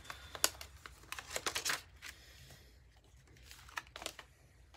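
Cardstock die-cut embellishments rustling and clicking as they are sorted by hand and one is set down, with a cluster of sharp clicks in the first two seconds and a few more near the end.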